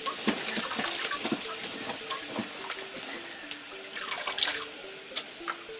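Hands swishing and squeezing chopped akeyo leaves in a metal basin of water, with irregular splashes and dripping as handfuls are lifted out.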